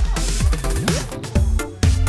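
Background electronic dance music with a steady beat and bass line, with a rising sweep about halfway through.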